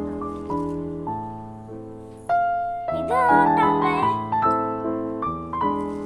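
Background piano-style music: a gentle melody of sustained notes changing about twice a second over low notes, with a brief warbling higher line about three seconds in.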